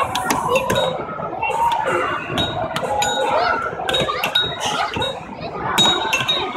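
Indoor playground din: overlapping children's voices and chatter, with frequent sharp clicks and short high-pitched clinks and pings throughout.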